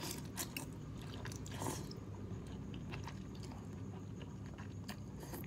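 A person chewing and slurping a mouthful of instant ramen noodles: soft, wet mouth sounds with scattered small clicks.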